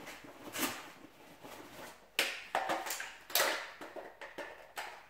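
Handling noise of an airsoft AK magazine change with a chest rig: about half a dozen sharp clicks and knocks of magazine and rifle parts, with fabric and pouch rustling between them.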